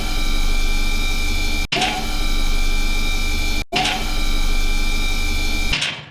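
A steady mechanical running sound with a constant high tone and a low hum, repeating a short swish about every two seconds, fading away near the end.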